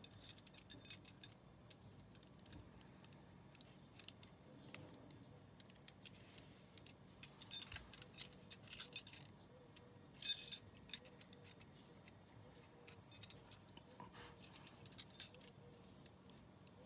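Hanayama Cast Box puzzle worked by hand: its metal ring clinks, taps and scrapes against the cast-metal box in irregular small clicks, with a louder clatter about ten seconds in.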